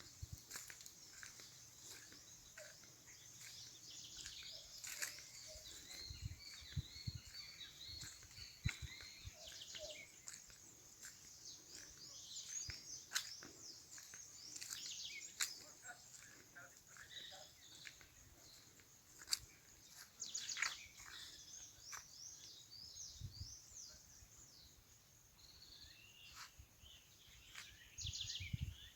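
Several birds singing and chirping at once, a busy mix of short chirps, quick trills and rapidly repeated high notes from different birds. A few soft low thumps come through now and then.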